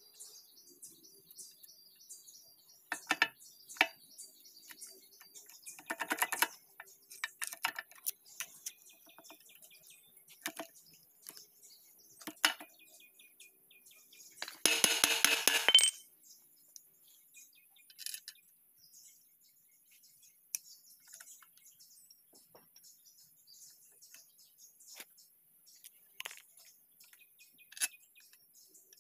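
Scattered metal clicks and taps of hand tools and parts against the cast-iron front differential housing of a Landini DT85 tractor while its pinion shaft and bearing housing are being fitted. About halfway through comes a louder clattering burst lasting just over a second.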